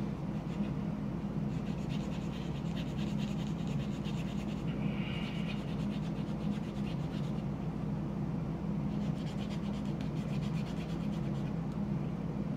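Plastic model-kit part being rubbed back and forth on a fingernail buffing block: a rapid scratchy scraping in two spells, about two seconds in and again around nine seconds in, over a steady low hum.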